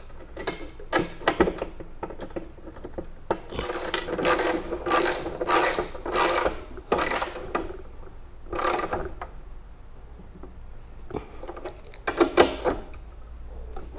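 Ratchet wrench clicking in short strokes as the bolts holding a garage door opener's motor unit to its ceiling brackets are tightened. The strokes come about two a second for a few seconds, then a few more with pauses between.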